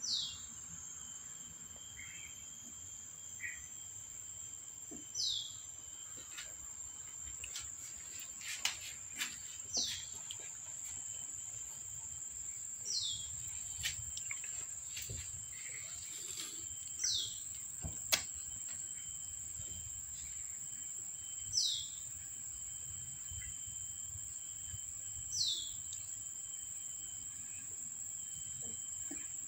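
A bird's short descending whistle, repeated about every four seconds, over a steady high-pitched insect drone, with scattered light taps and scratches.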